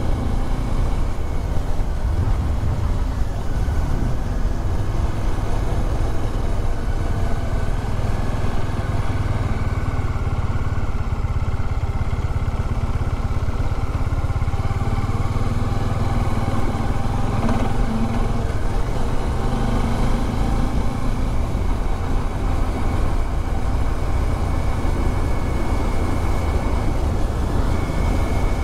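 Bajaj Dominar 400 motorcycle's single-cylinder engine running steadily while riding, under a dense low rush of wind and road noise.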